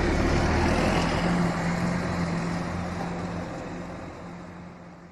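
Diesel coach bus driving past close by and pulling away, its engine running with a steady low hum that fades away over the last few seconds.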